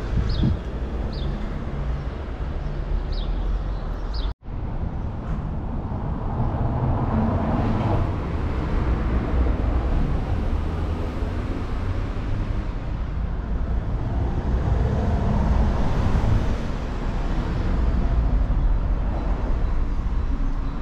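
Steady outdoor ambient noise with a heavy low rumble. A few short, high chirps come in the first four seconds, and the sound drops out for an instant just over four seconds in.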